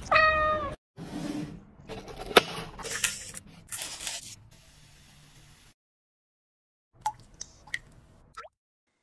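A cat meows once at the start, a short call that dips in pitch as it ends. Then come rustling, crinkling and sharp taps of paper and plastic being handled as a coffee filter paper is set into a cut plastic bottle, with a few faint ticks near the end.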